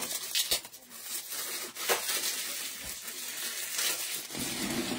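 Plastic crinkling and rustling as a trading card is slid into a soft penny sleeve and a rigid plastic top loader by gloved hands, with a few sharp plastic clicks.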